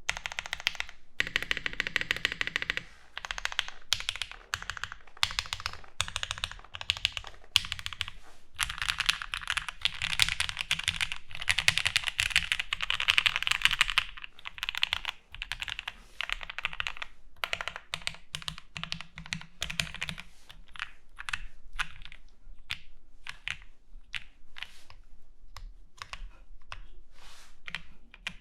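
Typing on a Hex 4B plateless 75% mechanical keyboard with GMK keycaps: a continuous stream of key clacks. It is fastest and densest from about a third of the way in to about halfway, then thins to sparser keystrokes near the end.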